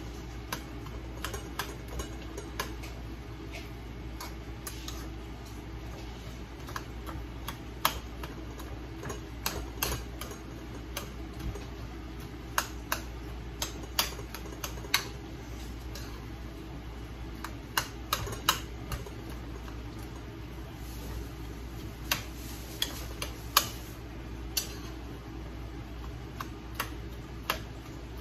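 A metal spoon knocking and scraping against a frying pan as a stew is stirred: irregular sharp clicks, often a few in quick succession, over a steady low hum.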